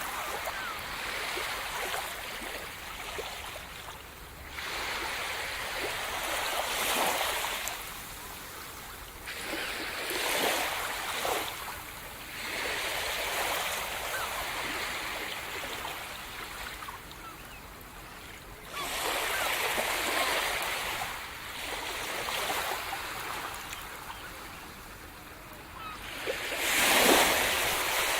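Sea surf: waves break and wash onto the shore one after another every few seconds, the loudest near the end.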